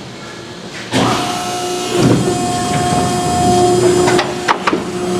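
Hydraulic power pack of an American Model 106-47L horizontal baler, driven by a 30 hp three-phase electric motor, running with a steady whine. It comes on louder suddenly about a second in, and a few sharp clicks sound near the end.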